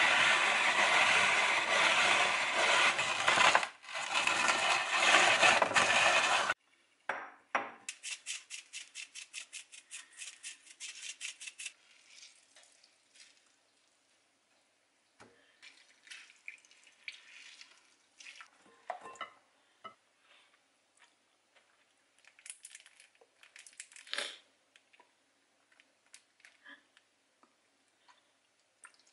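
Rotary drum grater shredding a carrot, a loud continuous rasping that stops abruptly after about six seconds. A quick run of fine ticks follows, then scattered light clinks of a fork and spoon against a glass bowl as the shredded carrot is handled and mixed.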